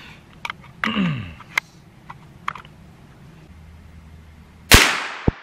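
A few sharp clicks and knocks as cartridges are loaded and the rifle's action is handled. Then a single shot from a Ruger American Ranch bolt-action rifle in .350 Legend near the end, the loudest sound, with its report ringing away.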